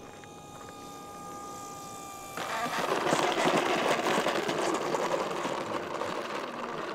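Electric motor of an E-flite T-28 Trojan RC plane giving a steady whine at low throttle on landing. About two seconds in it gives way abruptly to a much louder rattling rush as the plane rolls out and taxis on the asphalt runway.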